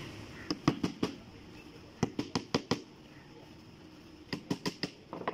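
Hammer striking on a wooden door panel and its straightedge guide in three quick runs of four to six blows each, with pauses between. This is the guide being set for routing grooves.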